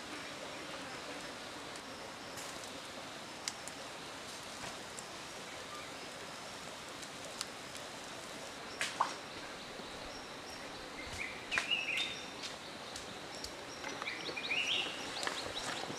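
Steady outdoor background hiss with a few faint scattered clicks; in the second half, short high bird chirps come in two brief clusters.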